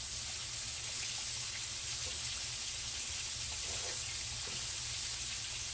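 Chicken pieces frying in hot oil in a skillet: a steady sizzle.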